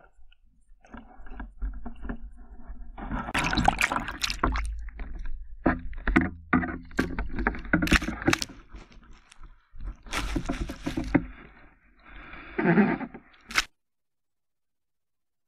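Water splashing and sloshing close against a waterproof action camera's housing as it breaks the surface at the bank, with sharp knocks and scrapes from the housing being handled. The sound cuts off abruptly near the end.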